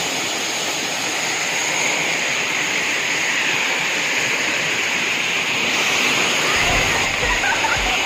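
Waterfall: a steady rush of water falling into a rocky pool, strongest in the hiss range. A few low thumps on the microphone come near the end.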